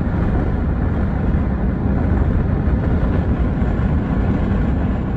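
Steady low rumble and rush of road and wind noise from a moving vehicle.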